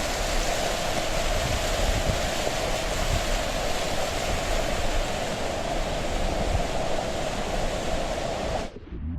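A waterfall's falling water rushing, a steady loud hiss, cut off abruptly near the end.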